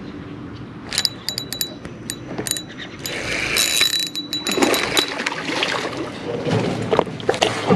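Small spinning reel on an ultralight rod being handled: a run of sharp mechanical clicks about a second in, then irregular rustling and handling noise as the rod is worked for a cast.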